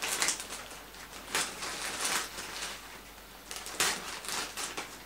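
Clear plastic packaging bag crinkling and rustling in irregular crackles as it is handled and pulled at to get it open.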